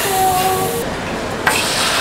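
Butter sizzling on a hot steel flat-top griddle, a steady hiss, with one sharp metal clink about one and a half seconds in.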